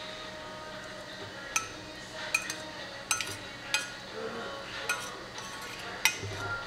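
Metal spoon clinking and scraping against a serving bowl as curry is spooned out onto a plate of rice: about half a dozen short, ringing clinks at irregular spacing.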